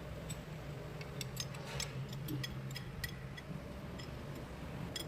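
Scattered light clicks and ticks from handling tools and parts during tractor axle repair work, over a steady low hum.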